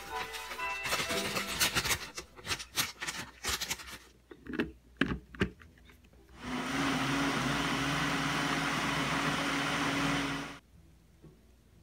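Grated coconut tipped from a plastic packet into a blender jar, with crackly rustling, then a few knocks as the lid goes on. About six seconds in, the blender runs steadily for about four seconds, mixing the coconut into the egg cake batter, and stops suddenly.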